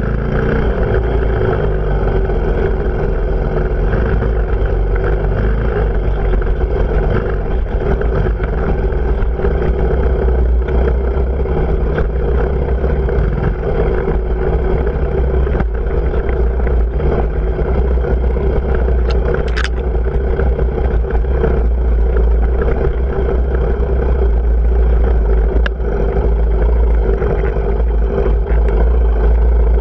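Off-road motorcycle engine running steadily under way, with the rattle and noise of the ride over rough ground. A brief high squeak about two-thirds of the way through.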